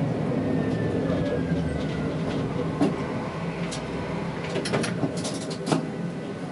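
Tatra T3S tram slowing to a halt, heard from the driver's cab: a steady low rumble with a faint whine falling in pitch as it slows, then a click and a short run of sharp clicks and knocks while it stands.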